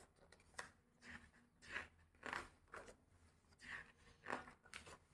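Faint, scattered rustles and soft clicks of a glossy-paper book page being handled and turned.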